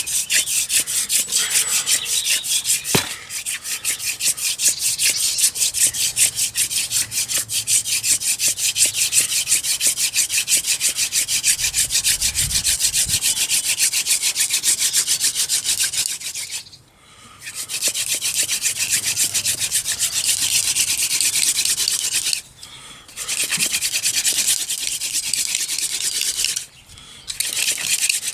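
Wooden hand-drill spindle spun back and forth between the palms, rubbing in its notch on a wooden hearth board in fast, even strokes to build friction heat for an ember. The rubbing breaks off three times briefly, near the middle and twice near the end.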